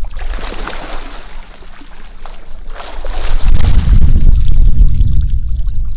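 Lake water splashing as a person wading waist-deep scoops it over himself, in two short bursts. From about halfway through, wind buffeting the microphone drowns it with a loud low rumble.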